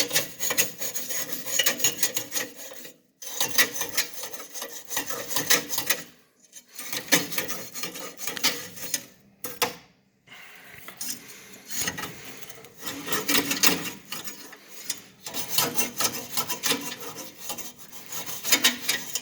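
Rapid scraping and scrubbing strokes on furnace parts during cleaning, in bursts of two to three seconds with short pauses between them.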